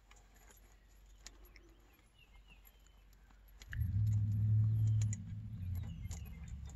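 Faint scattered clicks and a few faint chirps, then a low, steady motor hum that starts suddenly about four seconds in, is loudest for about a second, and carries on lower.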